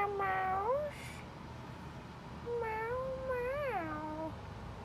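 Domestic cat meowing: a long drawn-out meow trails off in the first second, then a second long meow about two and a half seconds in rises, falls and ends on a lower pitch.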